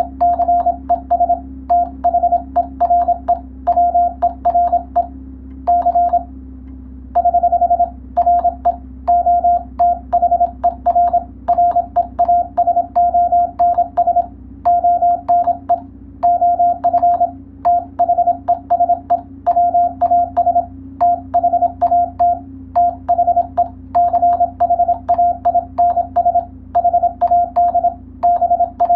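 Morse code sent as a single steady tone keyed on and off in fast dots and dashes, grouped into characters and words with short gaps and one pause of about a second, each keying marked by a sharp click. A low steady hum runs underneath.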